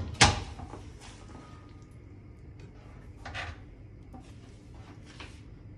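A plastic spatula stirs thick phirni in a frying pan, with a few faint, soft scrapes. There is one sharp knock right at the start.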